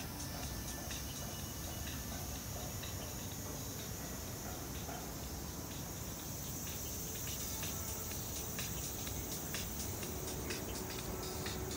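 Steady high-pitched insect buzzing with fast regular pulsing, rising slightly in pitch about halfway through, over a low background rumble.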